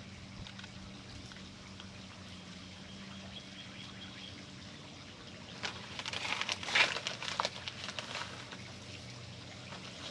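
Hands working in a planter of gritty potting mix and small decorative stones as succulent cuttings are pressed in: a burst of crackly, trickling scrapes and rustles about midway, over a low steady hum.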